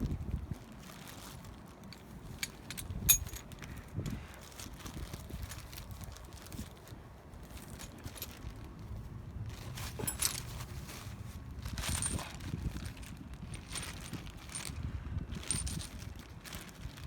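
Metal hand tools clinking and rattling as they are handled and sorted, in scattered clicks, with the sharpest clink about three seconds in.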